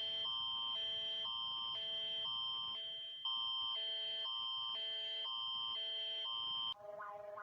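Synthesized emergency-alert alarm tone of a fan-made EAS alarm: two electronic chords alternating about twice a second, a little louder from about three seconds in. Near the end it switches to a quicker pulsing tone, about five pulses a second.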